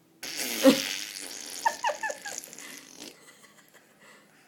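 A toddler making playful mouth noises: a breathy, rasping blow, then about four quick squeaky notes, each falling in pitch.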